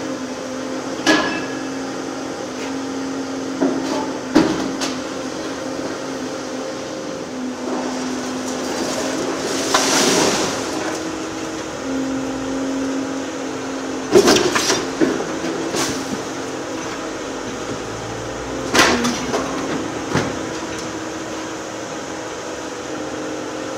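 High-reach Volvo EC750E demolition excavator working a building with its shears: a steady engine and hydraulic hum whose tone comes and goes. Sharp knocks and crashes of breaking and falling debris are scattered through, with the loudest cluster about fourteen seconds in and a rushing noise swelling about ten seconds in.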